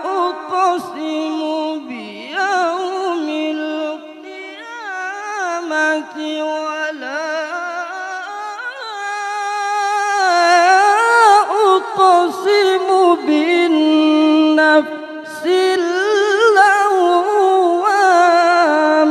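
A male qari chanting the Quran in a long, ornamented melodic passage of tilawah, one held voice sliding and trilling between pitches, sung into a handheld microphone. It is quieter around four seconds in and builds to a strong, loud passage in the second half, with a brief break for breath near fifteen seconds.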